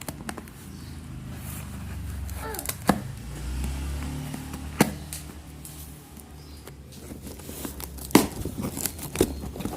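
A knife cutting and tearing into a thick cardboard shipping box, with a few sharp clicks and knocks as the cardboard gives and is handled.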